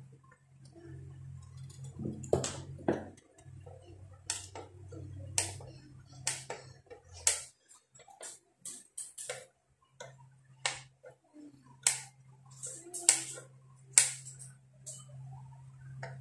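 Side cutters and hand tools clicking and snipping irregularly on an amplifier circuit board, trimming component leads. A low steady hum runs underneath and stops for about three seconds midway.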